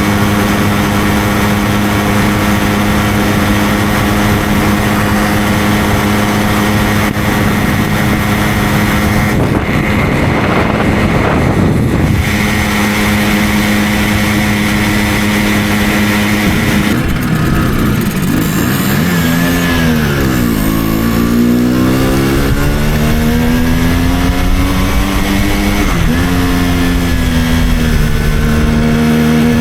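Simson 50cc two-stroke moped engine under way, holding a steady note at cruising speed. About two thirds of the way in the pitch falls as it slows down, then climbs again as it accelerates, dropping suddenly once at a gear change before settling steady.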